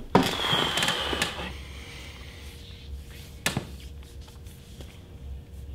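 Close rustling and clicking of the camera being handled for the first second and a half, then a quieter room with a low steady hum and a single knock a little after three seconds.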